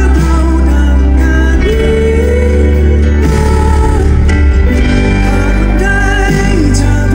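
Live pop band performance with a voice singing over the band and a strong, heavy bass, loud and steady.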